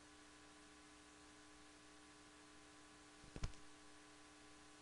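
Near silence with a faint steady hum, broken by one brief click about three and a half seconds in.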